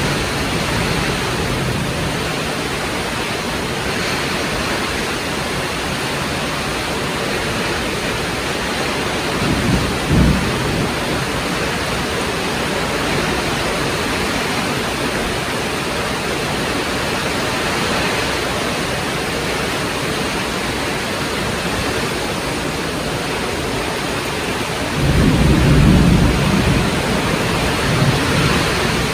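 Heavy rain falling steadily, with a brief low rumble of thunder about a third of the way in and a longer, louder rumble near the end.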